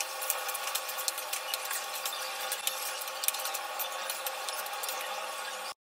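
Pasta in tomato sauce sizzling in a frying pan as it is stirred: a steady hiss with many small crackles, cutting off abruptly near the end.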